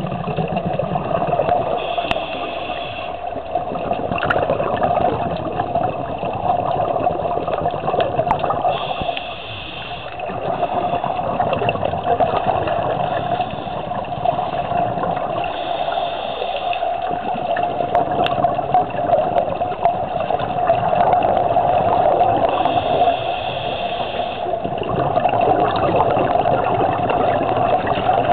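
Underwater sound of scuba divers breathing through their regulators: a continuous bubbling rush of exhaled air, with a short higher hiss about every seven seconds.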